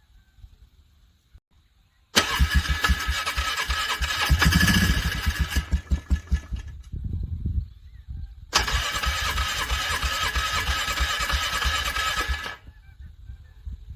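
ATV engine being cranked over by its electric starter in two long attempts of about four to five seconds each, struggling to catch: a hard cold start in freezing weather. A few uneven pulses between the attempts, without the engine running on.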